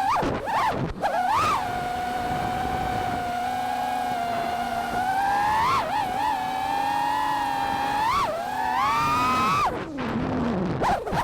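Five-inch FPV freestyle quadcopter's brushless motors and propellers whining, the pitch rising and falling with throttle: a steady cruise tone broken by quick throttle punches about 1.5, 6 and 8 seconds in, then a falling glide and a few sudden chops near the end.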